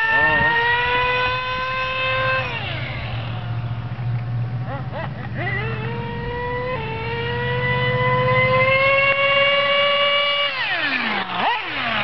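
Nitro-engined remote-control buggy running at high revs with a high-pitched whine. The pitch creeps up, drops as the throttle is let off about two and a half seconds in, climbs again from about five seconds, and falls away near the end.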